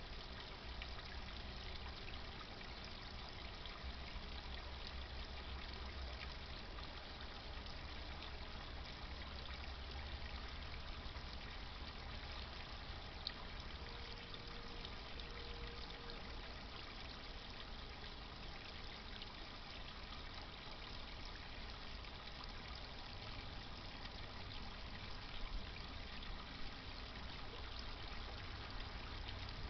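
Steady trickle and splash of water from a garden pond's pump-driven flow, with a low rumble underneath that is heavier in the first dozen seconds and again near the end.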